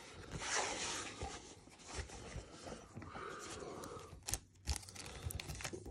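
Faint rustling and scraping of a rolled rubber-backed playmat being handled and unrolled on a tabletop, with one sharp tap a little past four seconds in.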